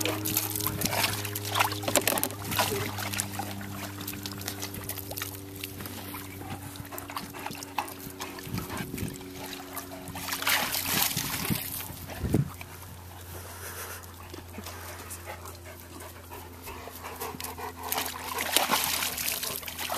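Large dogs splashing and drinking in a tub of water: a harlequin Great Dane dunks its muzzle and paws at the water, sending up irregular splashes and sloshing, loudest a couple of seconds in, around the middle and near the end. A steady low hum runs underneath.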